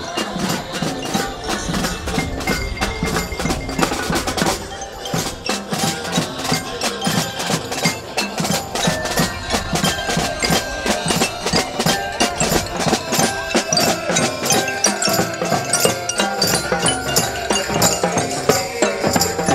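Music with a busy, steady percussion beat and pitched tones over it.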